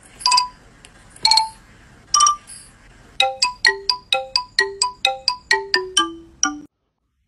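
A short ringtone-like tune of ringing, bell-like notes: three single notes about a second apart, then a quick run of about a dozen notes, roughly four a second, that falls to lower notes at the end.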